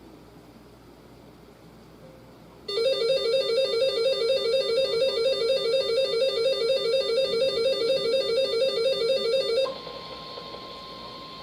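Electronic alert tone: a rapid, repeating pattern of high beeping tones that starts suddenly about three seconds in, runs for about seven seconds and cuts off, followed by a faint steady single tone.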